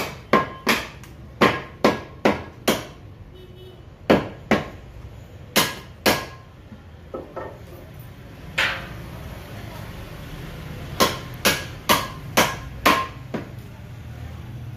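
Butcher's meat cleaver chopping beef on a wooden chopping block: sharp blows coming in quick runs of several strikes, with short pauses between the runs.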